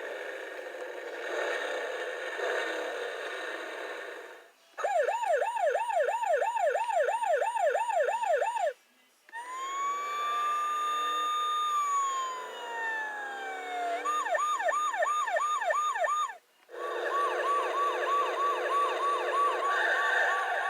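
Police car siren sound effects cut one after another, with short silences between them. After a noisy opening stretch come a fast yelp of quick repeated up-and-down sweeps, a slow wail that rises and then falls, another yelp, and a faster yelp of about four sweeps a second.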